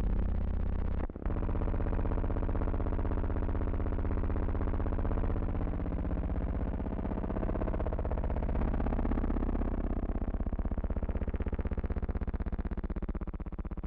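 A steady, low buzzing hum rich in overtones, cutting out briefly about a second in.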